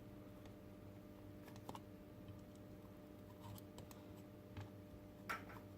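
Faint, scattered clicks and taps of small plastic robot parts and screws being handled, as an ear piece is fitted onto a plastic robot head, with the sharpest click near the end. A low steady hum sits underneath.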